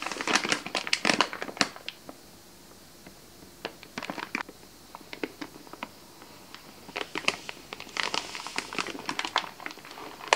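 Plastic bag of brown rice crinkling as it is handled close to the microphone, in three bursts of crackling with short pauses between.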